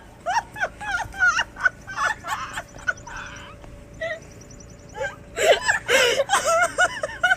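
People laughing. The laughter dies down about three seconds in and picks up again about five seconds in.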